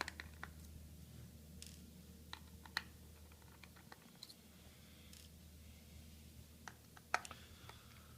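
Small screwdriver working the screws that hold a laptop's 2.5-inch hard drive: scattered light clicks and ticks of the bit and screws, a second or two apart, over a faint steady low hum.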